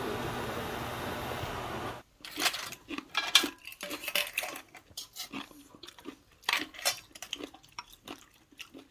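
A steady whirring hum cuts off about two seconds in. After that come scattered sharp clicks and clinks of scallop shells and utensils knocking against dishes while steamed scallops are eaten.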